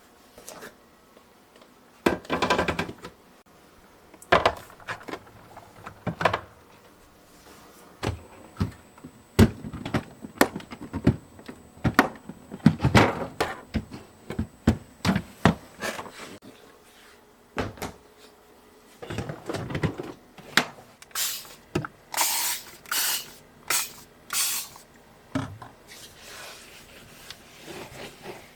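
Things being handled while cleaning and organizing a refrigerator: scattered knocks, clicks and rustles of items being picked up and set down, with a quick run of short hissing or rubbing strokes later on.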